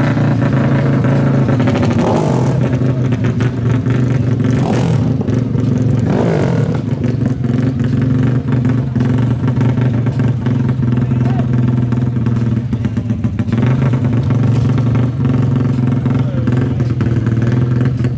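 Four-stroke ATV engine running at a steady speed, with a few short louder surges in the first several seconds.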